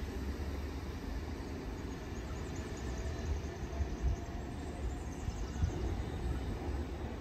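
Sydney Trains suburban electric train pulling away from the platform and fading into the distance: a low, steady rumble.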